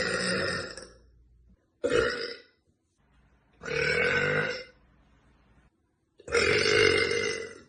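A woman burping loudly, one burp after another: the end of one burp at the start, then a short burp about two seconds in and two longer ones of about a second each, with short silent gaps between.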